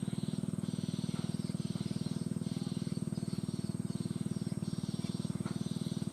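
Lovebird chick begging to be fed: a rapid, buzzing low pulse under rhythmic raspy hissing bursts, about one and a half a second.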